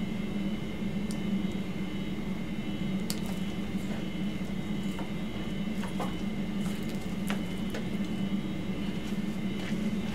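Steady low room hum, with a few faint clicks from handling the catheter's stopcock and tubing.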